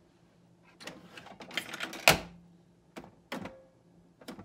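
Scattered plastic clicks and knocks from handling a Keurig coffee maker and pressing its buttons, the sharpest about two seconds in; the machine does not start.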